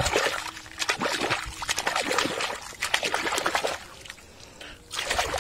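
Water splashing and trickling over a toy front loader as it is washed, in an irregular stretch of about four seconds, then again briefly near the end.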